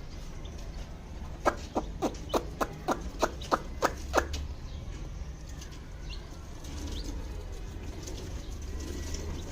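A bird calling in a quick run of about ten short, sharp notes, roughly four a second, each dropping in pitch, lasting under three seconds. A few faint high peeps follow later.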